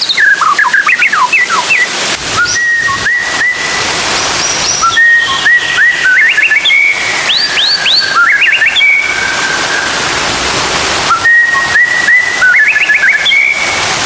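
White-rumped shama (murai batu) singing: phrases of clear whistled notes and fast sweeping glides, with a short lull about two thirds through, over a steady hiss.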